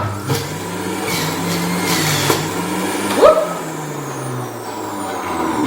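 Moulinex electric juicer motor running as lettuce, lemon and other produce are pressed into it, a steady hum with grinding and rattling from the produce; the motor's pitch sags about four seconds in as it takes the load.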